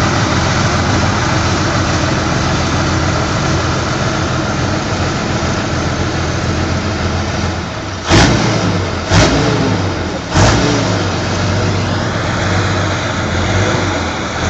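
Engine of a large custom trike running steadily, then blipped hard three times, a little over a second apart, about halfway through.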